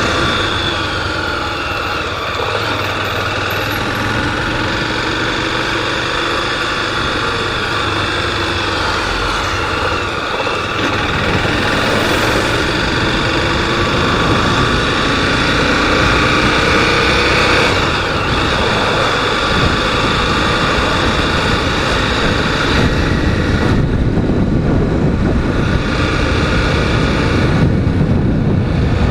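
Honda Twister motorcycle's single-cylinder 250 cc engine running while riding, its pitch rising and falling several times with throttle and gear changes.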